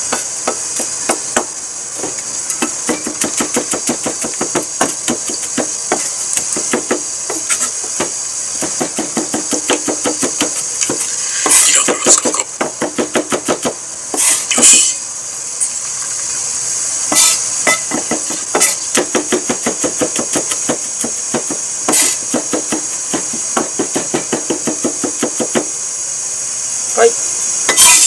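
Kitchen knife mincing garlic on a wooden cutting board: quick, even chopping knocks in long runs, broken a few times by louder scrapes of the blade gathering the mince together.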